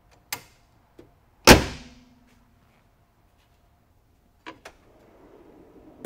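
A car hood slammed shut about a second and a half in: one heavy thud with a short metallic ring after it, after a small click. Near the end come two light clicks and a soft scraping.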